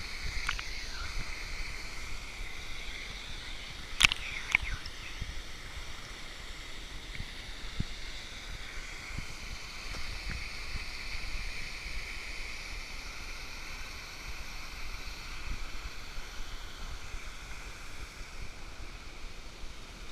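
Steady rushing of a waterfall pool and stream, with a sharp knock about four seconds in and a smaller one just after.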